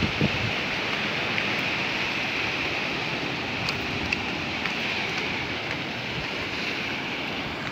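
Ocean surf breaking and washing against a rocky shore: a steady rushing hiss of waves and foam.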